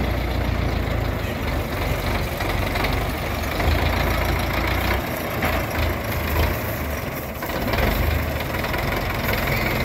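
Belarus MTZ 510 tractor's diesel engine running steadily under load while it pulls and drives a super seeder, whose rotor churns the stubble and soil.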